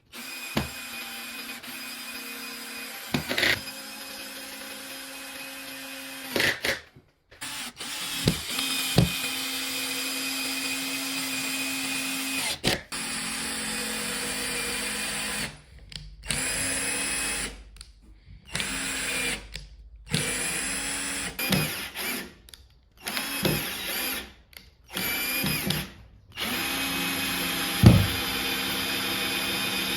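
An electric power tool's motor runs steadily in a string of separate stretches, each starting and stopping abruptly. A few sharp knocks fall between them.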